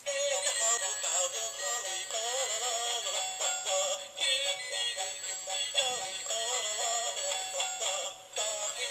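A song playing with a high, wavering sung melody over thin, tinny backing with no bass.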